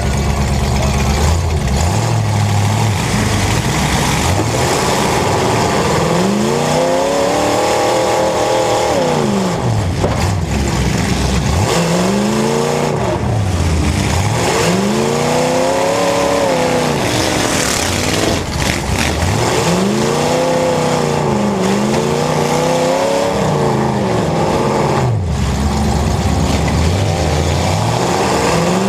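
Demolition derby car engines revving hard and dropping back, over and over, with a few sharp knocks in between.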